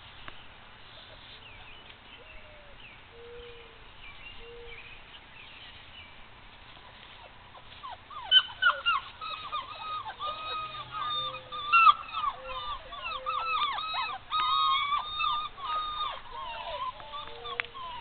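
Puppy whining and yelping in a rapid run of high, falling cries, starting about halfway through and going on to the end.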